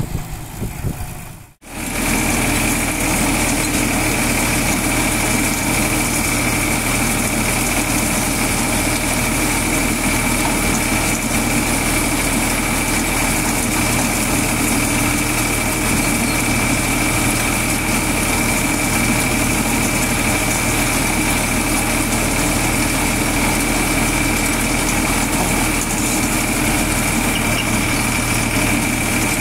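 Tractor-driven corn thresher shelling corn, with the tractor's diesel engine running at a steady speed. The sound is a loud, even machine din with a steady high whine over it, starting after a brief dropout about a second and a half in.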